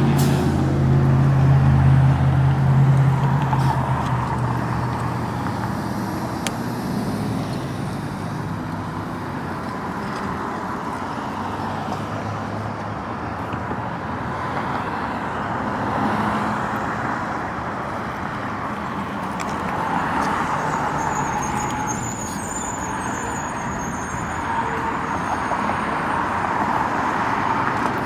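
A motor vehicle's engine running close by for the first few seconds, a low hum that fades, then steady road and wind noise while riding an e-bike along the street.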